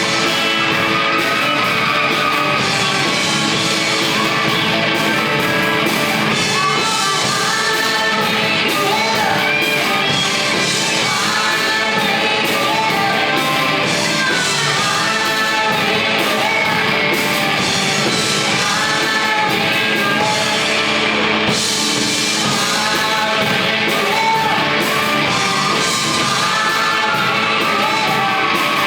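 A live band playing a song with a singer over the full band, loud and steady throughout.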